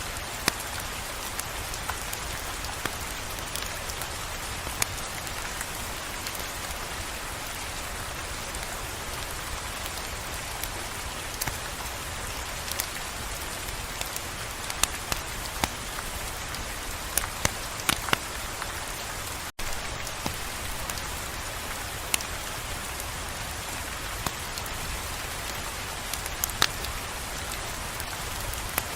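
Steady rain hiss with scattered sharp ticks and crackles; the sound cuts out for an instant about two-thirds of the way through.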